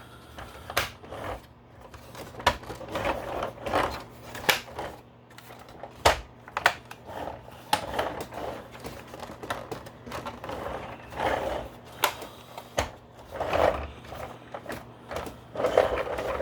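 Hard plastic parts of a G.I. Joe BUGG toy vehicle being handled and pressed together during reassembly: irregular sharp clicks and knocks with scraping and rattling of plastic in between.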